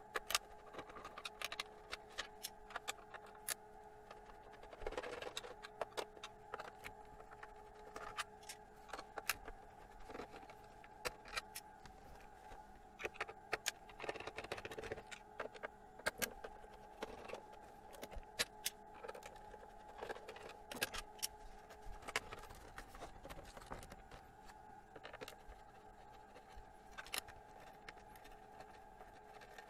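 Faint, scattered clicks and taps of a screwdriver and small screws as the back case of a plastic radio-cassette player is unscrewed, over a steady hum.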